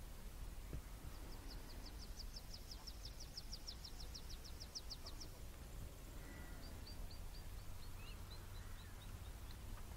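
A bird calling over a low, steady wind rumble: a fast series of about twenty high, thin notes lasting some four seconds, then, after a short pause, a slower run of about a dozen notes that falls slightly in pitch.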